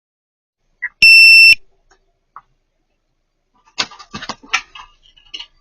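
A loud electronic censor bleep, one steady tone lasting about half a second, about a second in, masking a swear word. In the second half comes a run of short scattered knocks and clicks.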